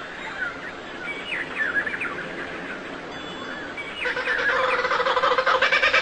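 Small birds chirping in quick, short, rising and falling notes. About four seconds in, a louder, rapidly pulsing call takes over and grows louder.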